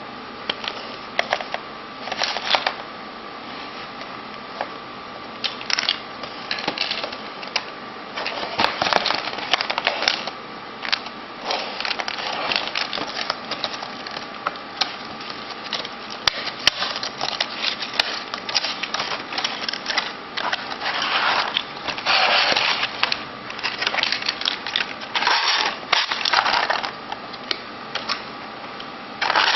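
A cardboard gift box and its clear plastic blister tray being worked open by hand: irregular rustling, crinkling and scraping in bursts, with a few sharp clicks, over a faint steady hum.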